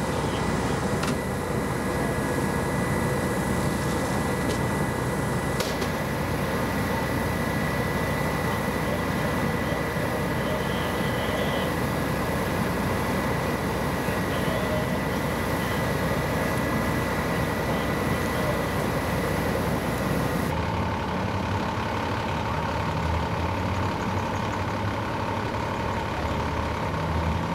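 Heavy fire apparatus engines idling steadily: a dense low rumble with a thin steady whine over it. The sound shifts abruptly twice as the picture cuts.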